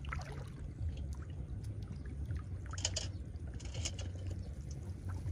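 Shallow field water splashing and sloshing as someone wades and gropes through it by hand, with two brief louder splashes about three and four seconds in, over a steady low rumble.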